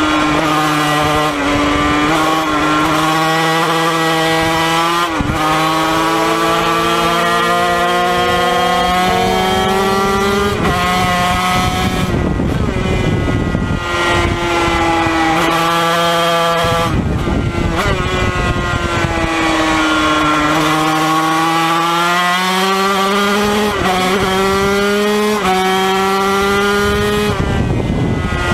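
Yamaha TZ250 two-stroke racing engine at full race pace, heard from on board: its pitch climbs through each gear and drops sharply at each gear change, about ten times, with short off-throttle stretches between the climbs.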